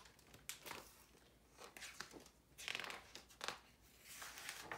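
Faint rustling and crinkling of a picture book being opened and its pages turned, as a few short separate rustles.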